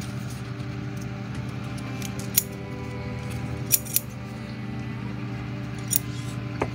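Small hobby scissors snipping a waterslide decal sheet: about five short, sharp snips spread through, two of them close together near the middle, over a steady low hum.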